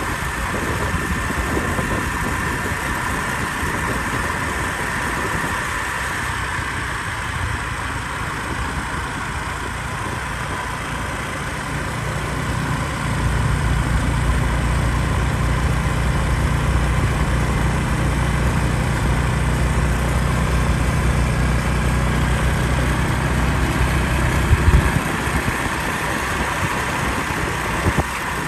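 Motor scooter engine running at riding speed under steady wind and road noise. The low rumble grows louder about halfway through, with a couple of brief knocks near the end.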